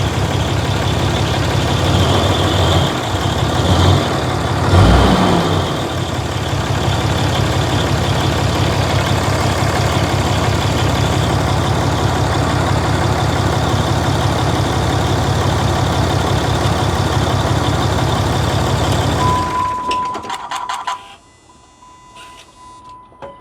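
Cummins diesel of a 2008 Ram idling on first start after a fan and fan clutch replacement, the fan moving air, with a squeal over it that the owners put down to the water pump. The engine shuts off near the end, and a steady chime tone follows.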